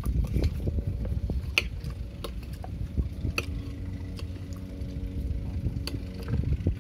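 Metal spoons clicking and scraping on ceramic plates during a meal, over a low wind rumble on the microphone; a steady motor drone joins about three and a half seconds in and fades out near the end.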